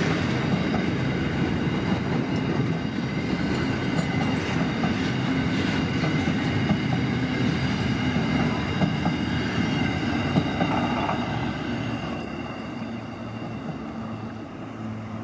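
Freight train of open wagons rolling past on the rails, a steady rumble of wheels on track. It fades near the end as the last wagons move away.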